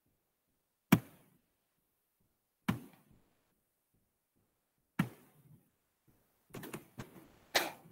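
A handful of sharp, short knocks picked up over a video-call microphone. They come a couple of seconds apart at first, then several follow in quick succession near the end.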